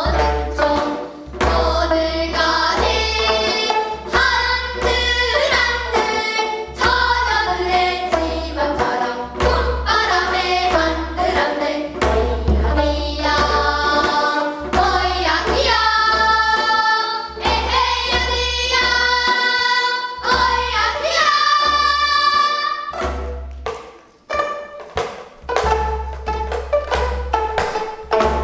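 Girls' voices singing a Korean new folk song (sinminyo) together while plucking gayageum zithers, in gayageum byeongchang style, with a regular low pulse beneath the music.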